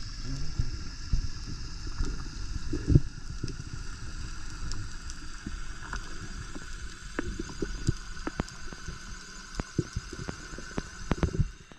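Underwater sound around a freediver's camera: a low wash of moving water, scattered sharp clicks and a faint steady whine, typical of a distant boat motor heard underwater.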